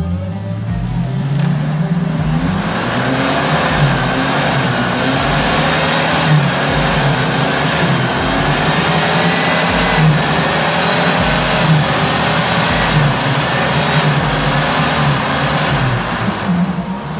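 UAZ off-roader's engine revving hard as it pushes through deep mud. Its pitch climbs over the first couple of seconds, then stays high and wavers up and down.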